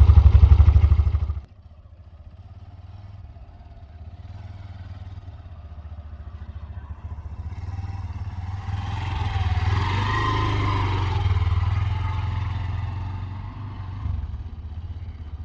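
Hero Xtreme 125R's single-cylinder engine running, heard loud and close at the silencer for about a second and a half before dropping off suddenly. The engine goes on more faintly, growing louder in the middle and fading again.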